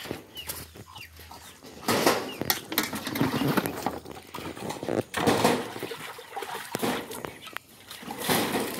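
Water splashing and pouring in several separate bursts as a metal cooking pot (sufuria) is rinsed with water scooped from a bucket, with chickens clucking.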